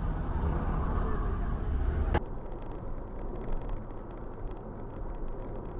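Road and engine noise from a moving car, recorded by a dashcam: a loud low rumble that cuts off suddenly about two seconds in, then a quieter steady in-cabin road rumble with faint scattered ticks.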